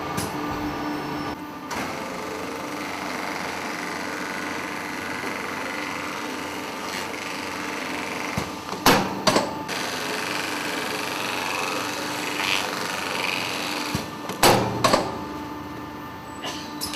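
Date tray-packaging machine running steadily with a hum and a light hiss as film is sealed over the trays. Two sharp double clacks of the machine's mechanism come about nine seconds in and again near fifteen seconds.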